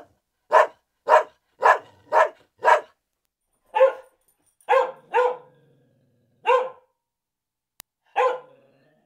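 Dog barking: a quick run of five short barks, about two a second, then four more at irregular gaps, two of them close together.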